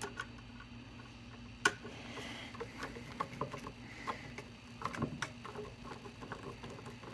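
Screwdriver driving a wall outlet's top and bottom mounting screws into the electrical box: faint, irregular small clicks and ticks, with one sharper click about one and a half seconds in.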